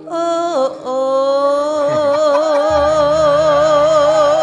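A Javanese sinden (female gamelan vocalist) sings solo through a microphone, sliding down into a long held note with wide, even vibrato. A low steady instrumental tone comes in beneath her about halfway through.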